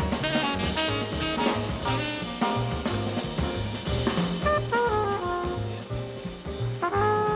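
Big band jazz: a tenor saxophone plays a solo of quick runs over walking bass and drum kit. The sax drops out about four seconds in, and near the end a flugelhorn comes in with long held notes.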